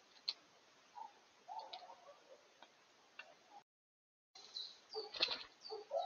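Great spotted woodpecker pecking at seed in a plastic feeder dish: a few separate sharp taps, with faint bird chirps around them. After a brief break come short high bird calls and one louder knock about five seconds in.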